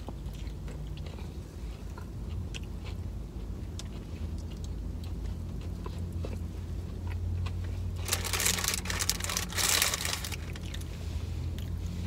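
Biting into and chewing a heavily breaded fried chicken sandwich: small crunchy clicks and crackles. About eight seconds in, a louder crinkling lasts about two seconds.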